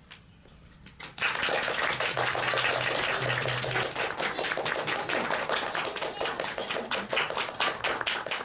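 Audience applause, starting suddenly about a second in as a dense, steady clatter of many hands clapping.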